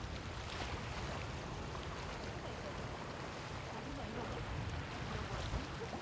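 Sea waves washing onto the beach, a steady rushing noise.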